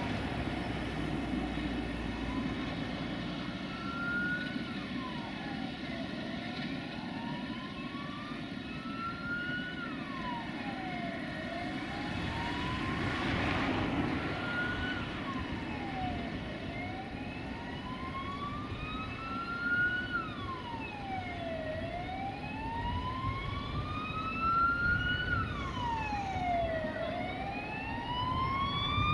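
Emergency vehicle siren wailing: its pitch rises slowly and falls quickly, repeating about every five seconds. It comes in faintly and gets louder toward the end, over a steady low rumble.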